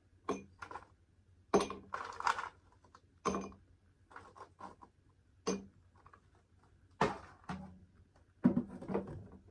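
Spoon and other cutlery clinking and scraping against a plate while eating. About seven sharp clinks come at irregular intervals.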